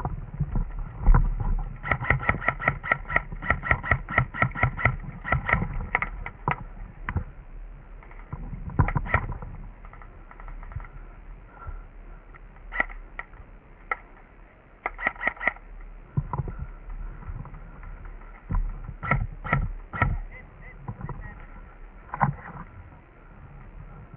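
Airsoft guns firing: a long string of quick shots at about six a second, then shorter bursts and single shots.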